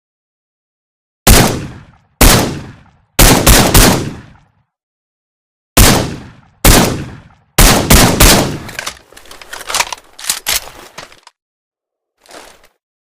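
Heckler & Koch SL8 semi-automatic rifle with a suppressor firing: about eight sharp shots in quick, uneven groups, each with a short fading tail. A spell of lighter clicks and clatter follows, then one faint click near the end.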